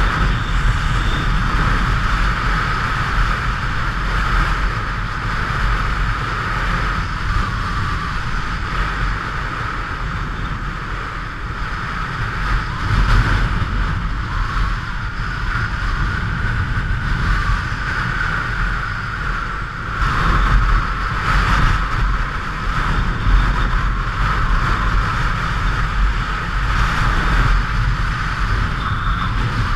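Motorcycle running at road speed, with a steady rush of wind over the microphone.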